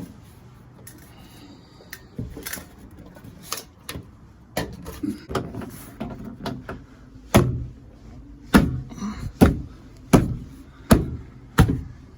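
Knocks and clunks from a Morris Minor 1000's dry wind-up window mechanism being worked on for greasing inside the open door. Scattered at first, they come about once a second and are loudest in the second half.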